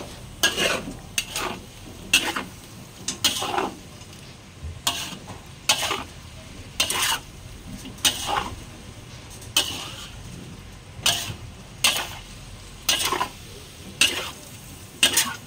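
Metal spatula scraping and stirring food around a stainless steel wok, about one scraping stroke a second, over a faint sizzle of frying. The spatula is working loose the browned crust stuck to the bottom of the wok after a splash of water.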